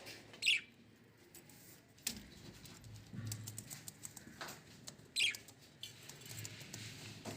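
Budgerigars chirping twice, short falling calls about half a second in and again about five seconds in, over light pecking and patter from the birds feeding.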